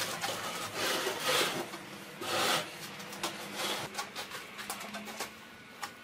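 A heavy metal fireplace insert being shoved into place, scraping over the blocks it rests on. There are a few drawn-out scrapes with small knocks between them.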